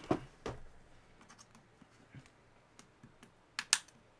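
Scattered light clicks and knocks of a tool against the hard plastic case of a laptop battery pack as it is being pried apart, with two sharper, louder clicks near the end.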